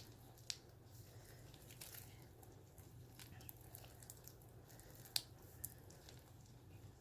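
Faint squishing with small sticky pops from hands kneading floam slime that is still sticky and not yet set, a few sharper pops standing out.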